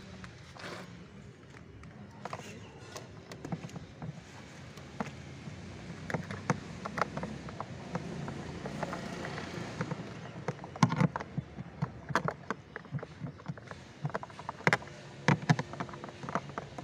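Workshop handling noise during car dashboard work: irregular sharp clicks and knocks of tools and parts over a low steady background. The loudest knocks cluster about eleven seconds in and again near fifteen seconds.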